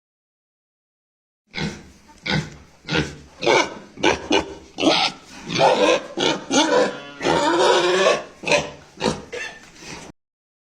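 Pig calling in a quick, irregular run of about a dozen short grunts and squeals. It starts about a second and a half in and stops shortly before the end.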